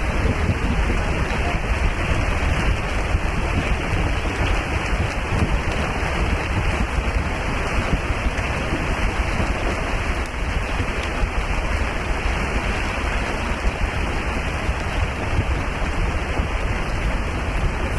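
Steady rushing noise of rain and wind in a squall at sea, with heavy low buffeting.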